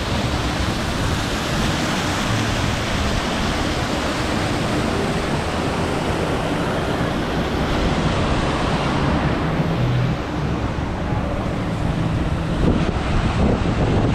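Steady rush of pouring and splashing water from water-park features, with wind on the microphone.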